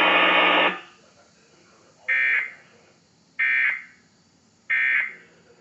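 Loud buzzy radio noise cuts off under a second in. Then come three short, shrill data bursts about a second apart: the EAS/SAME end-of-message tones from a NOAA weather radio, marking the end of the test tornado warning.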